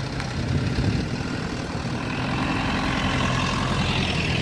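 Pickup trucks and a jeep driving past one after another, their engines running steadily. The sound grows a little louder as a pickup passes right by the microphone near the end.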